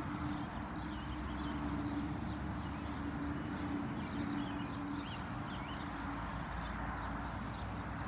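Birds chirping in short calls over a steady low hum that fades in and out, with a soft low rumble underneath.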